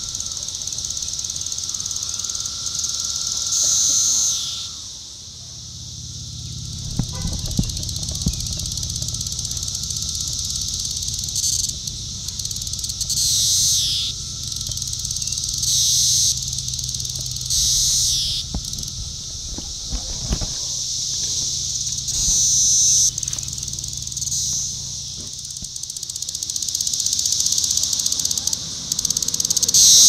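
Magicicada cassini periodical cicadas buzzing: a steady high-pitched chorus, with single louder buzzing calls swelling out of it every two to three seconds, each ending in a downward slur.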